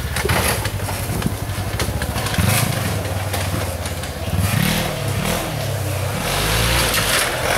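900cc-class Polaris side-by-side's engine revving up and down under load as it claws up a steep dirt slope, its pitch rising and falling over and over.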